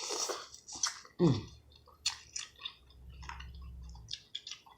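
Close-miked chewing and wet mouth clicks of someone biting into and eating seasoned boiled corn on the cob, with a short falling 'mm' about a second in.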